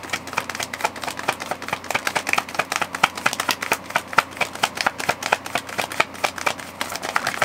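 A tarot deck being shuffled by hand: a fast, steady run of crisp card-edge clicks that stops near the end.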